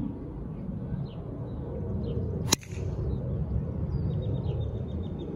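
Golf driver striking a ball off the tee: one sharp crack about two and a half seconds in, over a low rumble of wind on the microphone.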